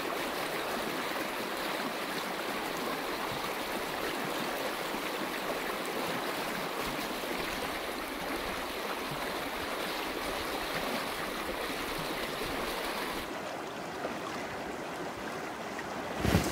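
Steady rush of a freestone river's fast-water riffle, an even hiss of moving water. About thirteen seconds in it turns duller as the high hiss drops away, and near the end there are a couple of brief loud knocks.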